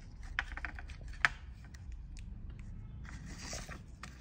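Handling noise: light irregular clicks and taps of fingers gripping and turning a plastic-wrapped 18650 lithium-ion cell against a plastic fan housing, with one sharper click about a second in and a short rustle near the end.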